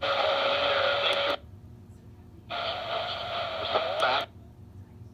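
Emergency Alert System digital data bursts (the SAME code) played over a radio: two harsh buzzing bursts, one at the start and another about two and a half seconds in, each lasting more than a second with a gap of quiet hiss between them.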